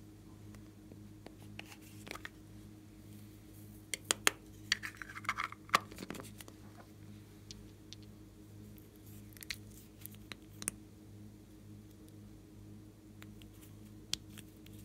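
Scattered clicks and rustles of small plastic bottles and jars being handled and opened, densest in a burst about four to six seconds in, over a steady low hum.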